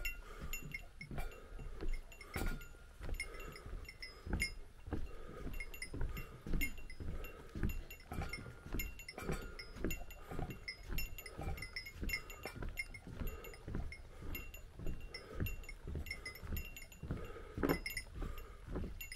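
A small bell jingling in time with footsteps on a trail, about two steps a second: the bear bell carried by a walking hiker.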